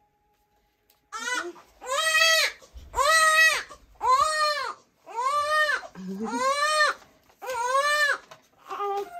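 Newborn baby crying in about seven wails, each rising and falling in pitch with short breaths between, starting about a second in. She is crying at being undressed to be weighed.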